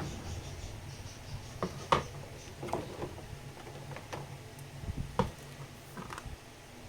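Scattered light clicks and knocks of small objects being handled, with sharper ones about two seconds in and a little after five seconds, over a faint low hum.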